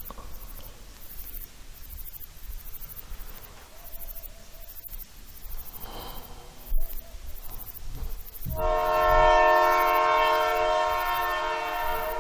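Steam locomotive whistle blowing one long blast that starts about eight and a half seconds in, over a low rumble of the train; a sharp click sounds shortly before the whistle.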